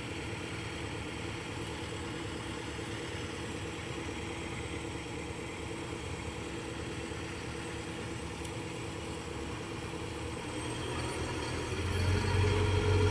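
Kobelco SK200-8 excavator's diesel engine running steadily, with a dump truck's diesel engine coming closer as it reverses up; the engine sound grows louder about twelve seconds in.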